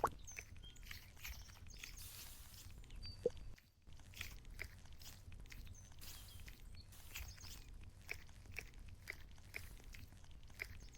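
Squishy foam toy being squeezed and handled close to the microphone, giving soft, irregular crackles and crunches.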